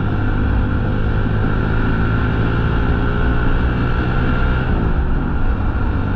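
Motorcycle engine running steadily while riding, with wind buffeting the microphone; about three-quarters of the way through, the engine note falls.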